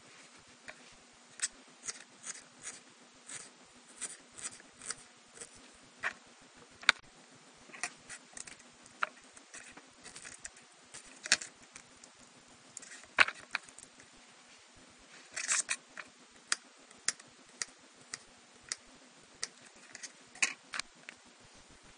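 Kitchen knife slicing a garlic clove on a cloth-covered table: irregular sharp clicks and taps as the blade strikes the table, about one or two a second, with a quick run of them around the middle.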